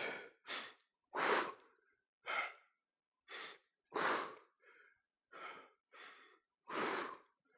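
A man breathing hard under exertion: about ten short, audible breaths in and out, one every half-second to second, with quiet between them.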